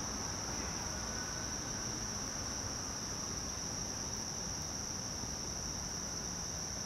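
Crickets chirping in a steady, high-pitched night chorus.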